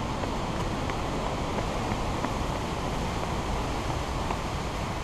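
Wind buffeting a running GoPro's microphone: a steady, rushing noise.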